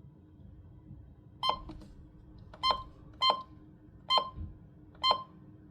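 A weather radio's short electronic key-press beeps, five of them at uneven intervals, as its buttons are pressed to work through the menu.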